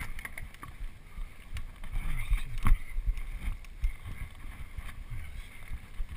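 Mountain bike riding fast over a dirt singletrack: a steady low rumble from the tyres and from wind on the camera, broken by frequent sharp knocks and rattles from the bike as it hits bumps. The hardest jolt comes about two and a half seconds in.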